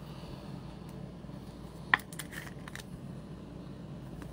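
A trading card being handled and slipped into a rigid clear plastic toploader: one sharp plastic click about two seconds in, then a few faint taps, over a steady low hum.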